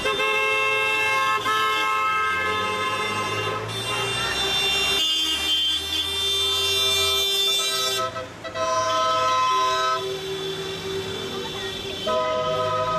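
Car horns honking in long held blasts, several horns of different pitch overlapping, with a short break about eight seconds in, over the running engines of slow-moving cars in a convoy.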